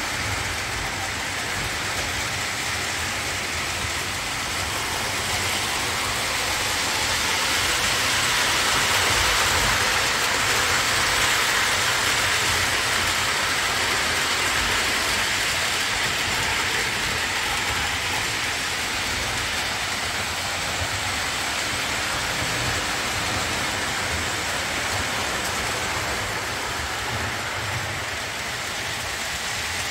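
Lionel O-27 toy trains running on three-rail track, a steady rushing rumble of wheels and motors that swells as a passenger train passes close by in the middle and then eases off.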